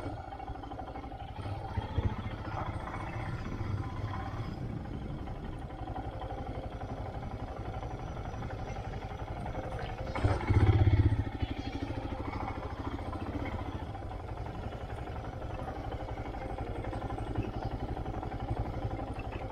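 Motorcycle engine running steadily while riding over a rough, unpaved track, with a louder surge for about a second some ten seconds in.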